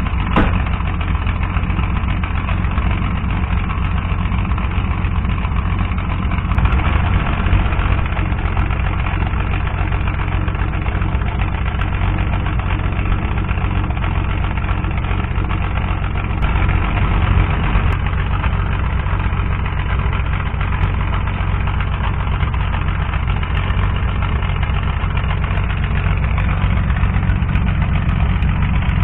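Datsun 240Z's L-series straight-six idling steadily through a provisional twin-pipe muffler, heard at the tailpipes. It twice briefly gets a little louder.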